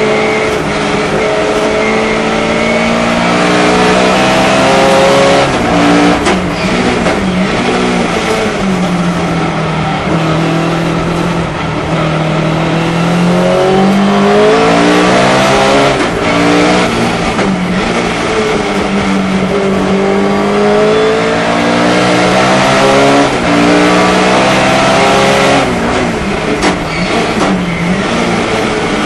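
Sunbeam Lotus rally-derived race car's four-cylinder engine running hard. Its pitch climbs through the gears and drops at each change, with several lifts and downshifts for corners.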